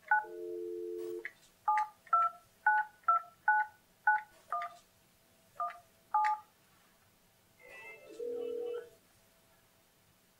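Alcatel-Lucent 8018 desk phone on handsfree: a brief steady dial tone, then about ten short touch-tone (DTMF) beeps as a number is keyed in, roughly two a second with a pause near the end of the dialling. About 8 seconds in, a ringing tone sounds for just over a second as the dialled line starts ringing.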